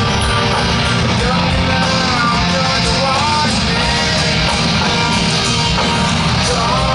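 Heavy metal band playing live: distorted electric guitar and drums, with a man singing over them.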